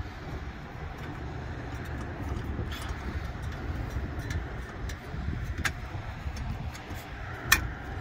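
Light metallic clicks and taps as steel gas burners are fitted into a furnace burner plate, with one sharper click near the end, over a steady low rumble.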